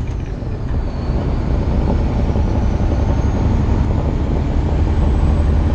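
Diesel semi-truck engine pulling steadily under load, heard from inside the cab, with a faint high whine that drops in pitch at the start and then slowly climbs again.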